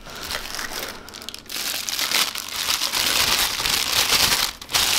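Clear plastic bag around a camera lens crinkling and rustling as it is handled and lifted out of its cardboard box. It is quieter at first, then loud and dense from about a second and a half in, with a brief break near the end.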